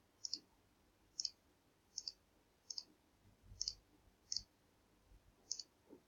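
Computer mouse button clicking seven times at uneven intervals of about a second. Each click is a quick press-and-release pair, made as colours are picked and areas of a colouring page are filled in.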